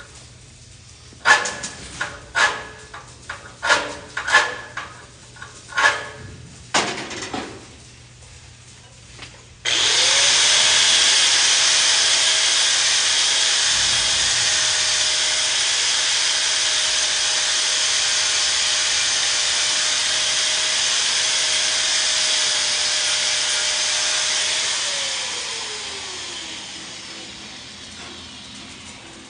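A run of about ten sharp knocks over several seconds. Then an angle grinder starts with a quick rising whine, runs steadily for about fifteen seconds, and winds down with a falling whine.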